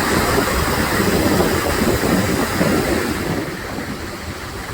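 Mediterranean surf washing on the shore, with wind rumbling on the microphone; the rush eases about three seconds in.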